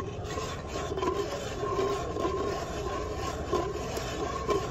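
Long acrylic nails scratching and rubbing steadily over the side of a clear plastic tumbler, making a continuous rasp.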